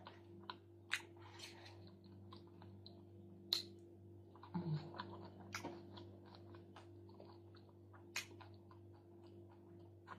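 Chewing a mouthful of salmon and chuka seaweed salad: soft, wet mouth smacks and small crunches at irregular spacing, over a faint steady hum.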